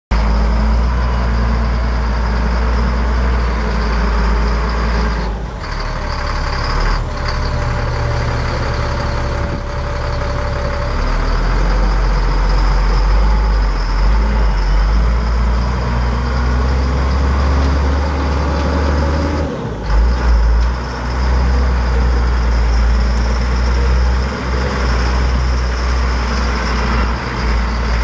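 Dump truck's Caterpillar 3126 inline-six turbo diesel engine running, its low drone shifting in pitch and level a few times, with a few short sharp sounds.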